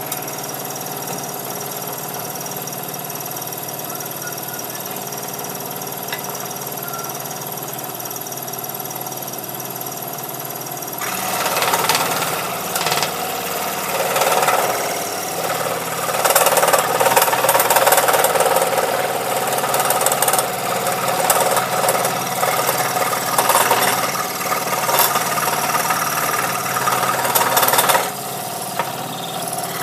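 Scroll saw running with a steady hum, then cutting through a piece of wood for the intarsia: about a third of the way in the sound turns louder and rougher and varies as the wood is fed into the blade, settling back to the free-running hum near the end.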